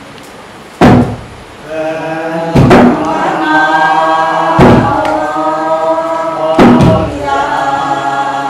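Large wooden barrel drum with rawhide heads struck with slow, heavy beats about every two seconds, four strikes in all, each ringing on briefly. From about two seconds in, a group of people sings a chant over the drum.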